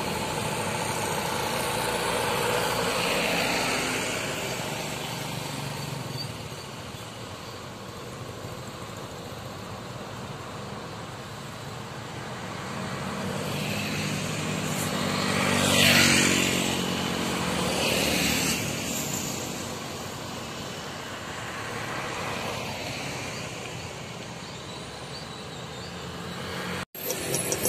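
Road traffic passing: a coach drives by close at the start, then motor scooters and cars pass, the loudest scooter going by about two-thirds of the way through with its engine note plainly heard.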